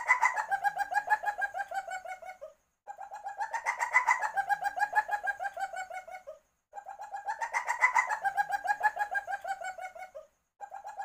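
Asian palm civet in heat giving its mating call: a rapid pulsing trill that rises in pitch at the start of each bout, holds level and drops at the end. The bouts last about three and a half seconds each and repeat with brief silences between them.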